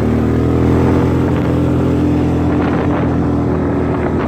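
An engine running steadily, a constant low hum that rises slightly in pitch during the first second.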